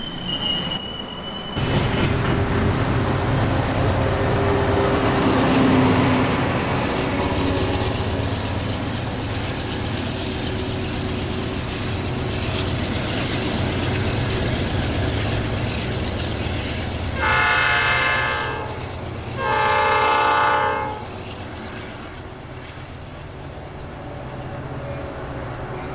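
Trains rumbling past on the rails, wheels clicking over the track joints. About 17 seconds in, the Metra commuter locomotive's horn sounds two long blasts for a grade crossing.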